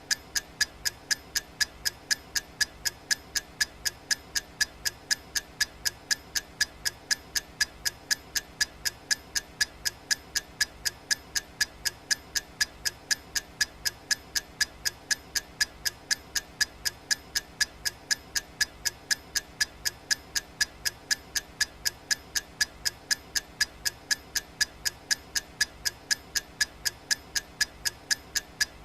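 Clock ticking sound effect: steady, evenly spaced sharp ticks, several a second, with no change in pace.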